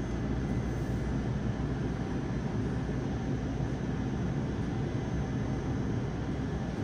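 Steady hum and rushing noise of a Yokohama Blue Line 3000R subway car standing at an underground platform with its doors open, with a few faint steady whines above the hum.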